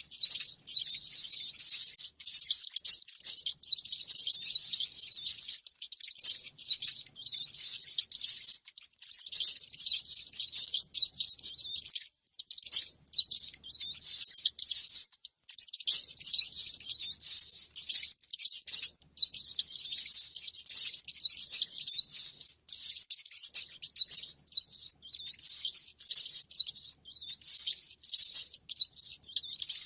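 Rats squeaking and chittering rapidly and without a break, a high-pitched chatter with only a few short pauses. This is a rat-call recording of the kind played as a lure to draw rats.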